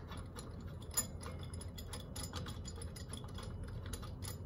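Light, irregular metal clicks and ticks as the blind-hole bearing puller's puller piece is fitted and threaded onto the collet's threaded rod, with one sharper click about a second in.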